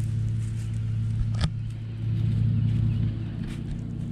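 A steady low motor-like hum, with a single sharp click about one and a half seconds in.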